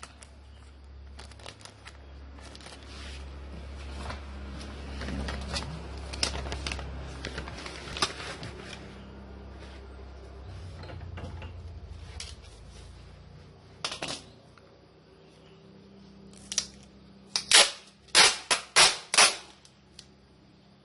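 Handling noise of small objects and packaging: a scatter of clicks, crackles and taps over a low hum, then five loud sharp snaps in quick succession near the end.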